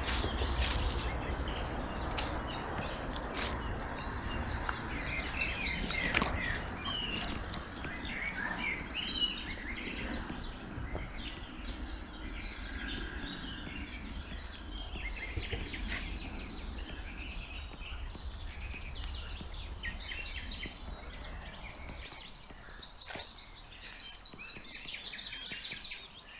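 Songbirds chirping and singing, with many short calls and trills that grow busier in the second half, over a steady rushing background noise.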